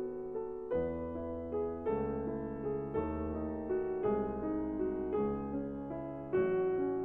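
Background music: soft piano playing a slow series of sustained chords, a new chord struck about once a second.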